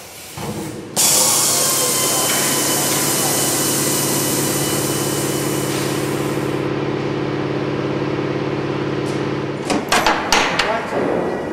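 A workshop machine running steadily with a low hum and hiss, starting about a second in and stopping near the end, followed by a quick series of sharp metal knocks and clicks from tool work.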